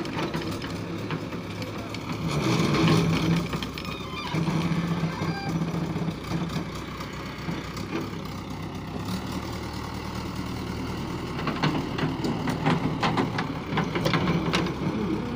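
Diesel engine of a JCB backhoe loader running under work, swelling louder a few times as it is revved, with several sharp knocks in the second half.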